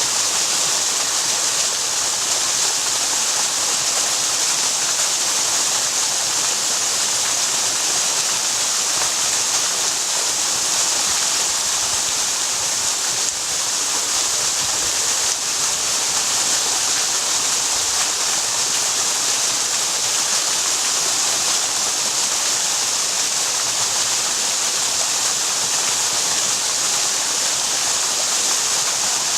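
Waterfall: water falling and splashing in a steady, unbroken hiss that is strongest in the high range.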